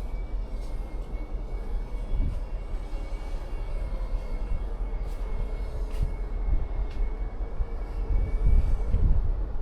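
Cruise ship ambience: a steady, fluctuating low rumble with a faint constant high whine and a slowly sliding mid-pitched hum, like machinery or ventilation running, with a few faint ticks.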